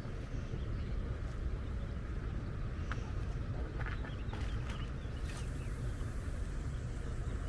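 Outdoor ambience by a lake: a steady low rumble, with a few faint bird chirps in the middle.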